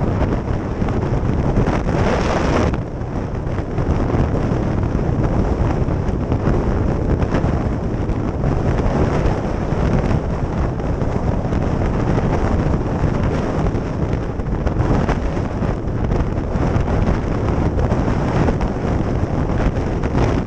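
Heavy wind buffeting on a helmet-mounted camera microphone while riding a trail motorcycle, with the bike running and its tyres on gravel mixed into the rush. A louder gust comes about two seconds in, followed by a brief dip.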